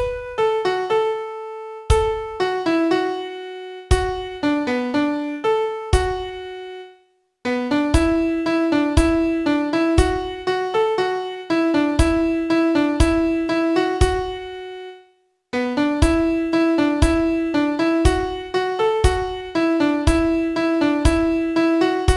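Piano playing the vocal melody of a pop song one note at a time, with a low note struck at the start of each bar. It stops briefly twice between phrases.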